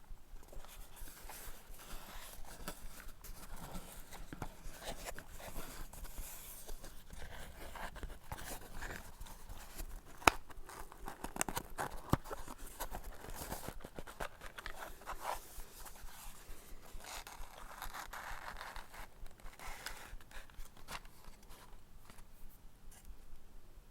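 Close-up scraping and rubbing of wooden objects, a continuous irregular scratching dotted with small clicks. A sharp click comes about ten seconds in, and another about two seconds later.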